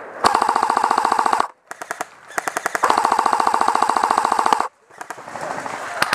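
Airsoft rifle firing on full auto in rapid, evenly spaced bursts: about a second of fire, a brief quieter burst, then a longer burst of about two seconds, with another starting near the end.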